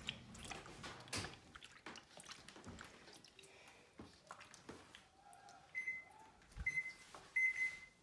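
A hand squeezing sourdough starter into water in a stainless-steel bowl, faint wet squelching and splashing. From about six seconds in an oven timer beeps, a high tone repeated in short pulses.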